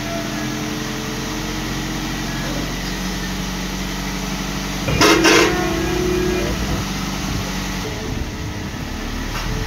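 Vehicle engine running steadily, with a horn honking once, briefly and loudly, about five seconds in.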